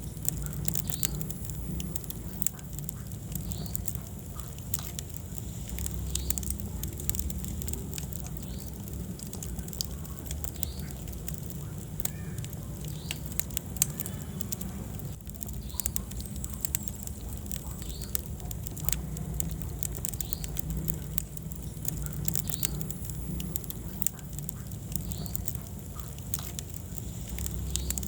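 Wood fire crackling, with frequent irregular sharp pops and snaps over a steady low rumble of the flames.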